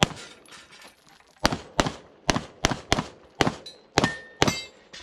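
Handgun fired in a rapid string during a practical shooting stage: one shot, a pause of about a second and a half while the shooter moves, then eight quick shots, the last ones followed by a faint ringing.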